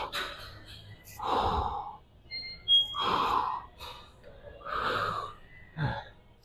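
A man breathing hard through dumbbell front raises: three loud, breathy exhalations about two seconds apart, one with each rep. A short sharp high sound comes just before the second breath.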